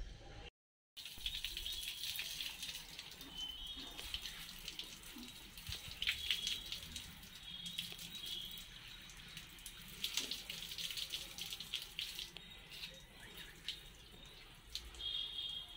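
Water pouring from a metal watering can onto potted plants, spattering on leaves and soil. A short dropout to silence just under a second in.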